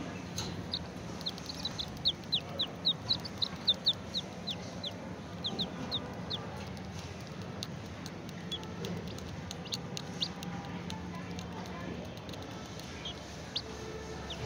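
Baby chicks peeping: a fast run of short, high, falling peeps in the first half, thinning out to scattered peeps later.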